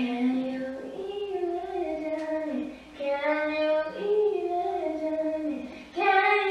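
A young woman's voice singing a melody unaccompanied, in three phrases with short breaks between.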